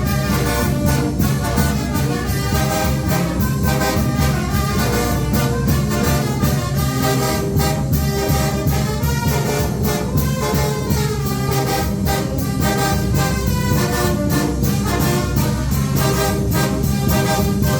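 Mexican village banda de viento (wind band) playing: trumpets and trombones carry the tune over a steady percussion beat.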